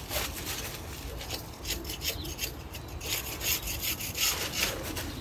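Crumpled packing paper crinkling and rustling as it is handled and unwrapped by hand, a continuous irregular crackle.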